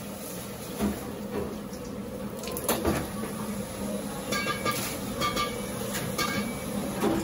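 Commercial kitchen at work: a steady hum under scattered knocks and ringing clinks of metal utensils, pots and strainers.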